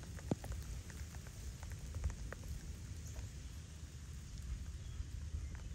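Steady rain falling on wet grass, with scattered sharp ticks of drops striking close by.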